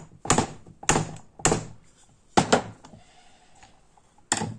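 Hammer blows on a screwdriver used as a drift, knocking the piston pin out of a 52cc chainsaw piston. About seven sharp knocks come roughly half a second apart, with a pause of nearly two seconds before the last two near the end.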